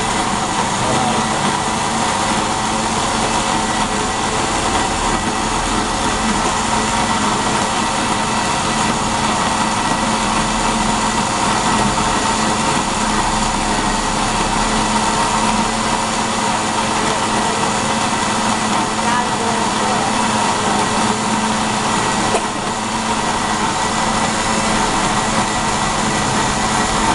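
Electric motor of a food grinder running steadily under load as it grinds the ingredients, a constant hum with a brief dip about 22 seconds in.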